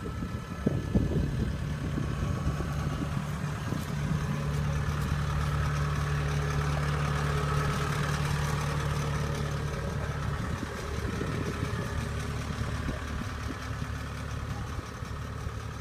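Kubota tracked rice combine harvester's diesel engine running steadily at a low hum, with some clattering in the first few seconds.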